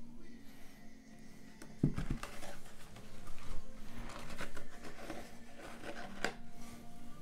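Handling noise from a stretched canvas: a dull thump about two seconds in as it is set down on the padded table, then scattered clicks and knocks as it is moved and tapped, with one sharp click near the end.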